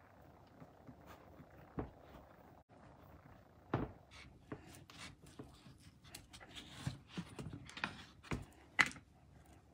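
Chef's knife cutting cantaloupe flesh and rind on a wooden cutting board, with soft scraping and scattered knocks of the blade and melon pieces on the board. The loudest knocks fall about two seconds in, about four seconds in and near the end.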